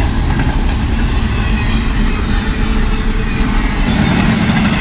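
A train passing close by, its long string of cars making a loud, steady rumble on the rails.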